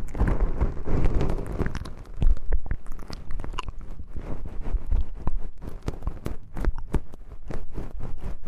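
Close-miked ASMR crackling: a dense, irregular run of small sharp clicks and crunchy, chewing-like noises right at the microphone.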